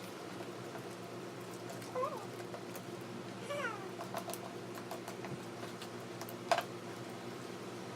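Two short pitched calls that slide up and down, about two and three and a half seconds in, over a steady low hum, with scattered light clicks and one sharper click near the end.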